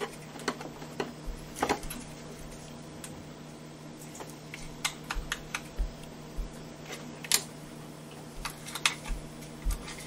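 Irregular small plastic clicks and taps as a snap-on plug adapter is worked onto a USB wall charger, a few sharper snaps among softer handling clicks.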